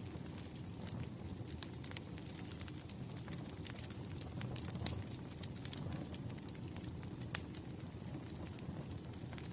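Wood fire burning: a low steady rumble with scattered sharp crackles and pops. The loudest pop comes about seven seconds in.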